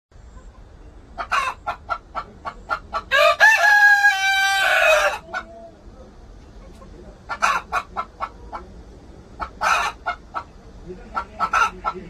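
Korean native chickens: a rooster crows once, a call about two seconds long starting some three seconds in, with runs of short, repeated clucks before and after it.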